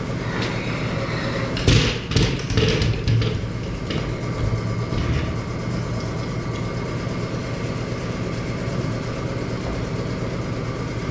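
Steady mechanical hum with a quick run of knocks and clatter about two seconds in.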